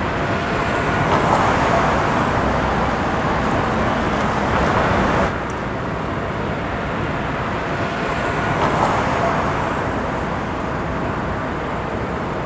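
Steady city street traffic noise with no speech, swelling a little around one to two seconds in and again near nine seconds as vehicles pass. The level drops suddenly about five seconds in.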